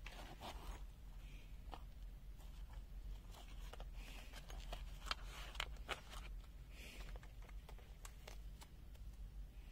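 Light clicks, taps and rustles of a Wiha screwdriver and bit set being handled, with a cluster of sharper clicks about five to six seconds in, over a steady low hum.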